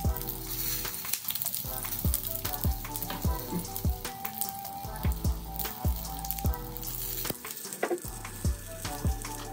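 Sweet Palermo pepper halves sizzling and crackling in hot oil in a grill pan, under background music with a steady deep beat.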